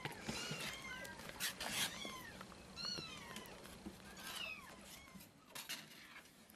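Very young kittens mewing over and over in short, high calls that fall in pitch, with small smacking clicks of suckling at a nursing-bottle nipple.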